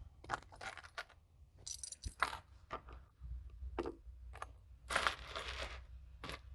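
Small metal rings and costume jewelry clinking and jingling as they are picked through by hand, in a string of short, irregular clicks.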